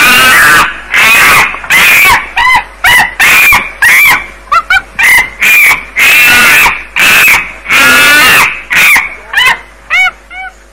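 Chimpanzee screeches and hoots, overdriven to harsh distortion: a string of loud calls, each about half a second to a second long, with shorter, quicker rising-and-falling calls near the end.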